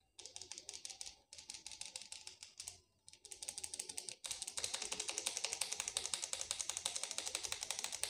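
Small paper sachet of ground turmeric shaken quickly over a stone mortar to sprinkle the powder in, its paper crinkling in rapid even ticks. Four runs of shaking with short breaks, the last and longest one from about four seconds in.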